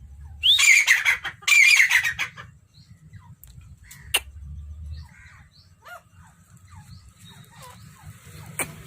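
Quail calling: two loud, harsh pitched calls close together in the first couple of seconds, followed by scattered faint chirps and clicks.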